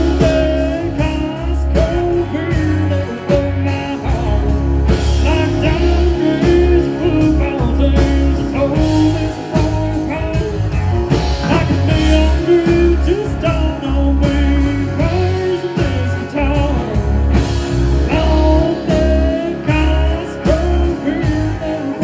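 A live country-rock band playing: a man singing lead over electric guitars and a drum kit, with a heavy pulsing low end.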